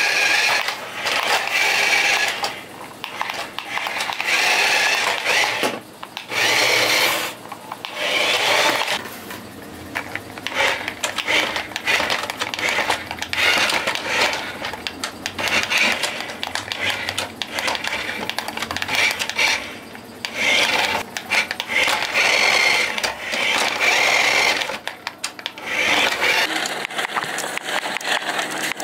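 Small electric drive motor and gears of a 1:16 radio-controlled Toyota Land Cruiser toy whirring in repeated start-stop bursts of a second or two as the car drives and stops.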